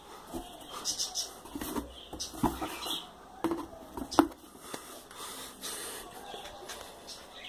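Cardboard box being handled: a run of short knocks and scrapes as its flaps are moved over a cat lying inside, loudest in the first few seconds, then quieter rustling.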